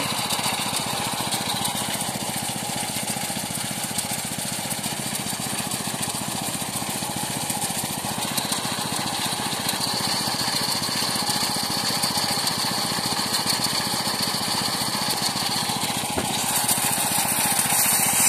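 Small engine of a motorised rice threshing machine running steadily, getting louder near the end.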